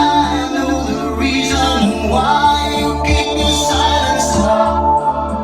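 A song with singing and a strong, pulsing bass line, played through a Mercedes' repaired factory Bose car audio system.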